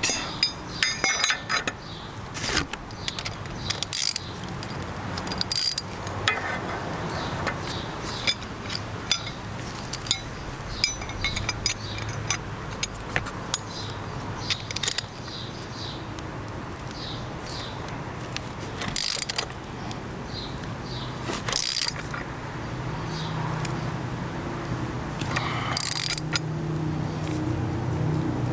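Ratchet wrench clicking in short runs as it turns the pressing bolt of a D.I.D. KM500R chain tool, pressing a rivet master link's side plate onto the pins of a 520 X-ring motorcycle chain, with a few louder metal knocks of tool on chain. A low steady hum grows over the last few seconds.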